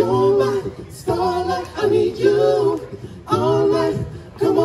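A cappella vocal group singing close-harmony chords in short rhythmic phrases, about one a second, with a low bass voice underneath.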